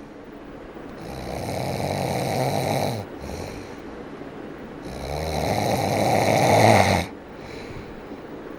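A person snoring: two long snores about four seconds apart, each growing louder and then cutting off abruptly, with a short, softer breath after each.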